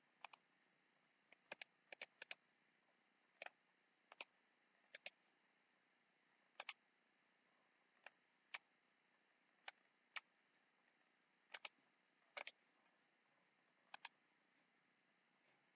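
Faint computer mouse clicks, single and in quick pairs, about one every second, over near silence.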